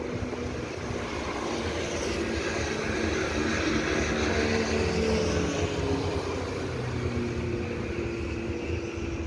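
Taiwan Railway electric passenger train running slowly on the tracks: a steady rumble with motor whines that drift gently in pitch, growing a little louder toward the middle.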